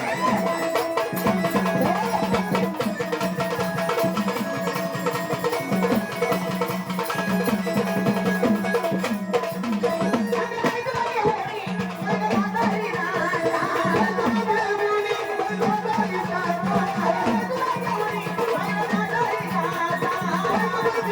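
Marathi folk devotional song music with a steady, driving hand-drum beat and a wavering melody line over it.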